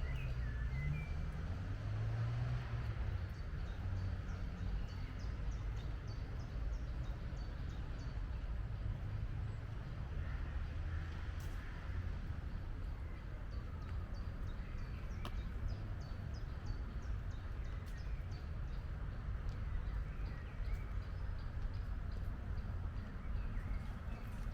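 Forest ambience: scattered small bird chirps and a recurring series of short, high ticking calls over a steady low rumble.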